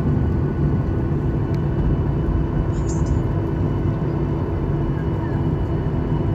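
Steady cabin noise of a Boeing 737-900ER taxiing, heard from a window seat: an even rumble and hum from its CFM56-7B engines at low taxi thrust. A brief faint click about three seconds in.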